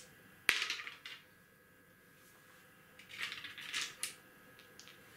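Dice clicking against the wooden backgammon board and each other as they are picked up and shaken in the hand. There is one sharp click about half a second in, then a short run of rattling clicks between three and four seconds in.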